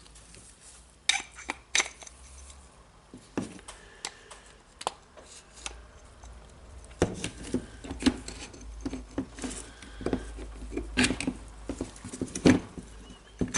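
Scattered sharp clicks and light knocks of small metal and plastic parts being handled and pressed into place while a cordless rotary hammer drill is reassembled, with more of them in the second half.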